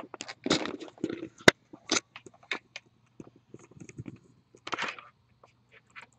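Boxes and packaging being handled: irregular crinkling, rustling and clicking, with one sharp snap about a second and a half in.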